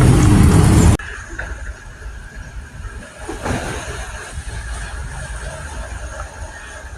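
Loud, steady vehicle-like rumble that cuts off abruptly about a second in, giving way to a quieter steady outdoor background with a faint thin hum and a few light knocks.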